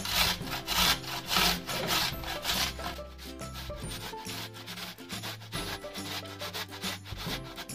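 Beetroot being grated on a stainless steel box grater: regular rasping strokes, loudest for the first three seconds and then quicker and quieter, with soft background music underneath.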